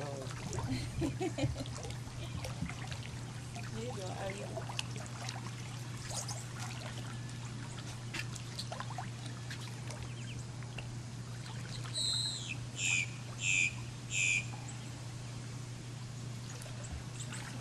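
Swimming-pool water trickling and gently splashing around a floating person, over a steady low hum. About twelve seconds in, a bird calls four times in quick succession: a short falling note, then three brief chirps.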